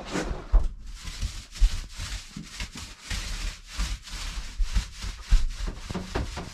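Repeated irregular rubbing strokes against wood, about two or three a second.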